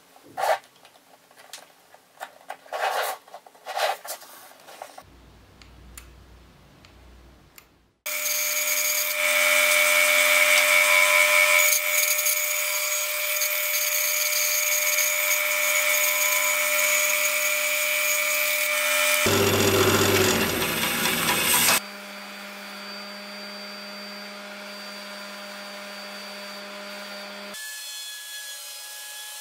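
Light clicks and taps of small wooden parts being handled. About eight seconds in, a bandsaw starts abruptly and runs loud and steady while cutting a piece of wood, with a hiss and a steady hum. Near the end it gives way to a much quieter, steady machine hum.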